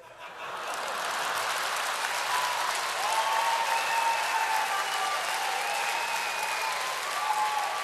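Large studio audience applauding after a joke. The clapping swells in within the first second and then holds steady.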